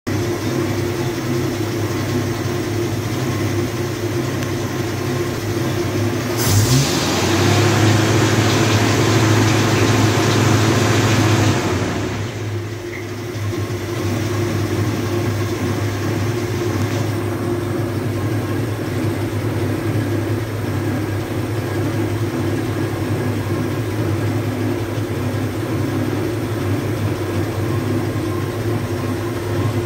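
GMC CCKW army truck's straight-six petrol engine running on 98-octane unleaded, idling steadily. About six seconds in it is revved up and held louder for around five seconds, then drops back to idle.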